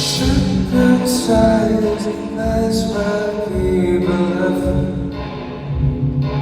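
Live pop music over a concert sound system: a male voice singing a slow melody over band accompaniment, with occasional cymbal and drum hits.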